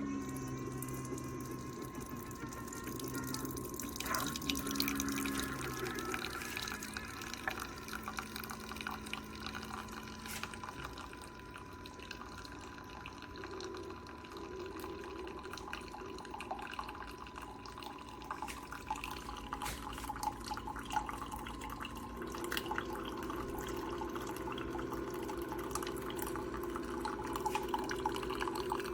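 Water running and dripping, with many small drips and a thin steady tone throughout.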